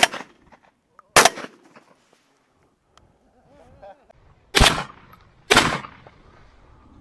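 Four shotgun shots: one right at the start, another about a second later, then a pair about a second apart around five seconds in.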